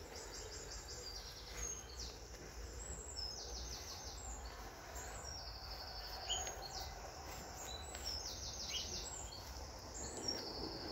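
Songbirds singing short, high, rapidly trilled phrases over and over, with a steady low rumble underneath.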